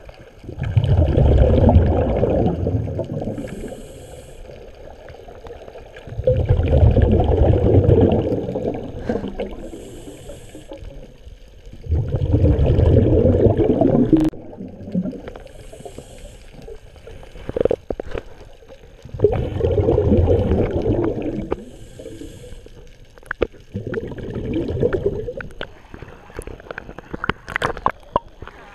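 Scuba diver breathing through a regulator underwater: a gurgling rush of exhaled bubbles every five or six seconds, five times, each followed by a short hiss of inhalation. Near the end come sharper splashes and knocks as the diver nears the surface.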